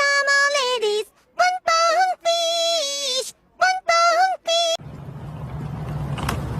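A voice sings a short melody in held, steady-pitched notes broken by brief pauses. A little under five seconds in it gives way to a rising, rumbling noise that builds in loudness, with a single click near the end.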